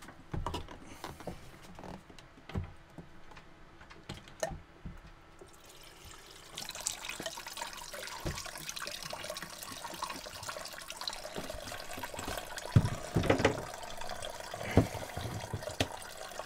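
Diesel squirted from a squeeze bottle through a Racor fuel filter housing, splashing and trickling through the glass bowl into a funnel below to rinse out dirt. There are a few light knocks of handling before the pour starts, about six seconds in, and several sharp knocks near the end.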